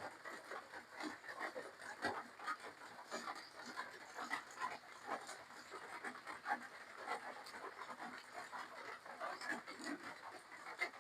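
A person eating up close: irregular chewing and smacking of mouthfuls of spicy seafood papaya salad with khanom jeen rice noodles, many small wet mouth noises in quick succession.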